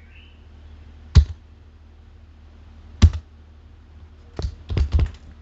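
Keystrokes on a computer keyboard. Two single key clicks, then a quick run of several near the end, over a steady low hum.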